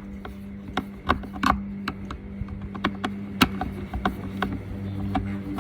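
Crosshead screwdriver backing a screw out of a Henry vacuum cleaner's plastic housing: irregular small clicks and taps, one sharper knock about three and a half seconds in.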